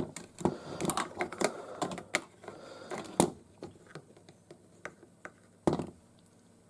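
Plastic clicks and taps of a Transformers figure and its gun being handled and fitted together, a dense run of clicks then sparser ticks, with a louder knock about three seconds in and another near the end.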